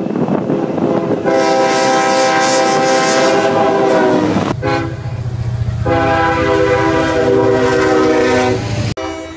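Union Pacific diesel freight locomotives passing with engine rumble, their multi-chime air horns sounding in long chords: one blast from about a second in, and another from about halfway to near the end.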